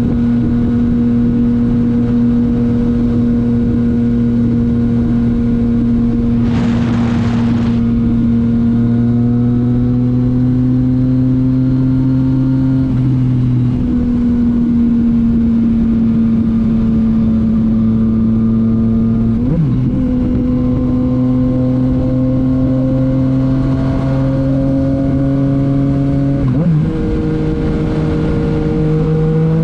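Yamaha MT-09's three-cylinder engine through a titanium Akrapovic exhaust, running under steady load with its pitch slowly rising. The note breaks briefly three times as gears are changed. There is a short rush of noise about seven seconds in.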